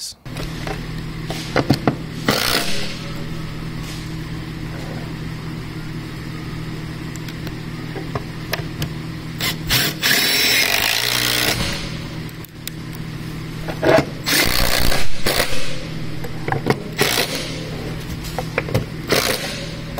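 Cordless impact driver running in several short bursts, driving T30 bolts through the steel swivel plate into T-nuts, with a longer run of driving about halfway through and louder bursts a little later.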